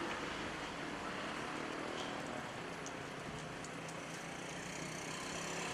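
Steady outdoor background of distant road traffic, with a faint low engine hum through the middle.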